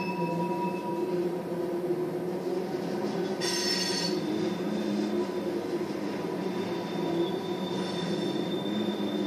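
Freight train of oil tank cars rolling past: a steady rumble of steel wheels on rail with thin, high wheel squeal over it, and a brief harsher screech about three and a half seconds in.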